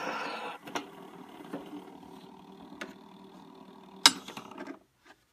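Edison B-80 phonograph: the sound of the Diamond Disc playing cuts off about half a second in with a click as the reproducer is lifted off the record. The turntable runs on with a faint mechanical hum and a few ticks. A sharp click comes a little after four seconds, then the turntable stops.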